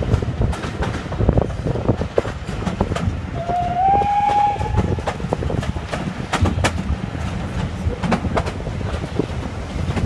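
Steam-hauled heritage train running, heard from an open carriage window: a steady rumble of the coaches with irregular clicks and knocks from the wheels over the rail joints. About three and a half seconds in, a short whistle sounds, rising slightly at first and then held for about a second.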